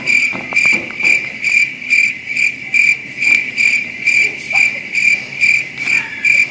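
Cricket chirping, an even high-pitched pulse about twice a second, cutting in and out abruptly like an edited-in sound effect.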